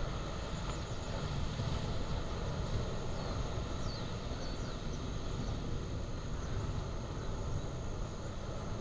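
Lava fountain of a Kilauea fissure eruption giving off a steady deep rumble as molten spatter is thrown continuously into the air.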